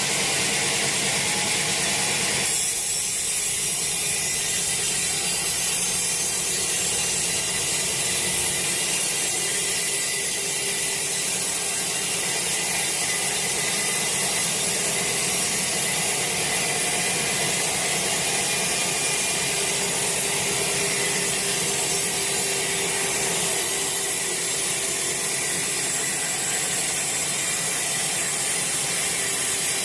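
Sawmill saw ripping lengthwise through a freshly felled teak log: a steady, unbroken cutting noise heavy in the high pitches, with the machine's drone underneath.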